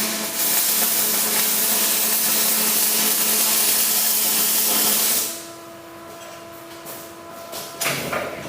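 Arc welding on a steel gate: the arc strikes suddenly and burns for about five seconds as a steady, loud hiss, then breaks off. A few short metal knocks follow near the end.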